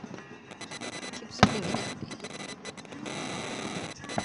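Aerial firework shell bursting with one loud boom about a second and a half in, followed by a couple of seconds of crackling as its stars burn out. Faint scattered crackles come before the boom.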